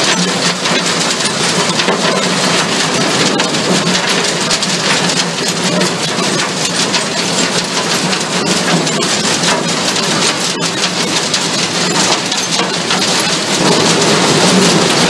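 Waste-recycling screening line running: a steady, dense clatter of crushed stone and rubble rattling over the screen deck and picking conveyor, with a steady machine hum beneath.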